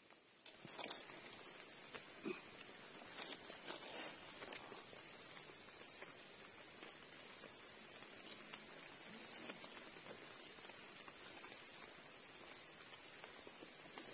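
A steady, high-pitched insect drone of crickets or cicadas, with scattered soft rustles and clicks of leaf litter and soil being handled as mushrooms are pulled from the ground.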